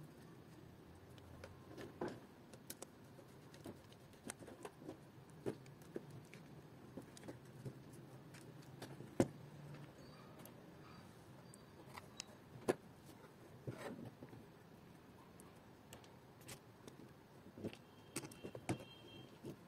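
Light, irregular clicks and taps of small plastic parts being handled as yellow plastic gear motors and their mounting tabs are fitted to a robot chassis plate. There is a sharper knock about nine seconds in and a quick cluster of taps near the end.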